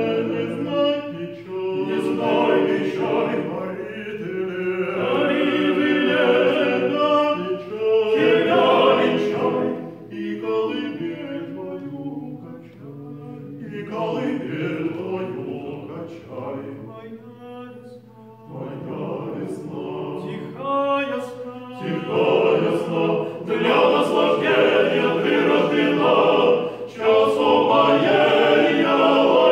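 Male vocal quartet singing a cappella in several parts, in phrases with short breaks, growing louder in the last third.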